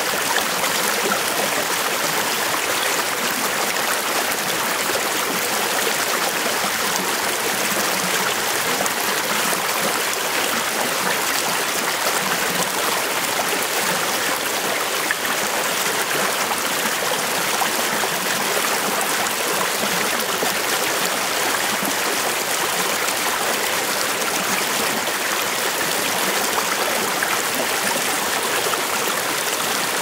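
Shallow river water rushing and splashing over rocks in a small rapid: a steady, even rush of water.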